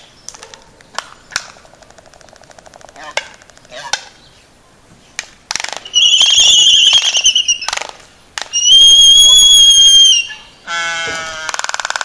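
Two Laysan albatrosses in a courtship dance. A run of sharp, separate bill clacks comes first. About six seconds in, and again at about nine, there is a loud high whistle-like call; the second is held steady for about a second and a half. Near the end comes a lower call that turns into a rapid buzzing rattle.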